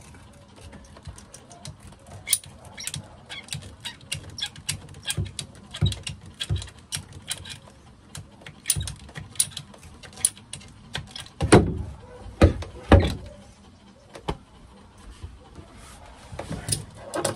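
A hand cutter is worked around green plastic water hose to trim it to length, giving a run of sharp clicks and snips. There are a few heavier knocks about two-thirds of the way through.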